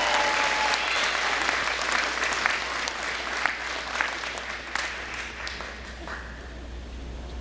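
Audience applauding and cheering for an indoor percussion ensemble as it is announced, with a few shouts near the start. The clapping thins out and dies away about five to six seconds in.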